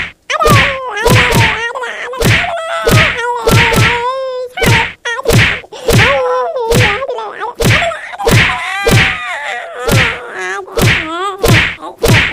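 Cartoon sound of a beating: a long series of sharp whacks, about two a second, each followed by a short pained cry or groan from a voice. The blows are a broom hitting a child.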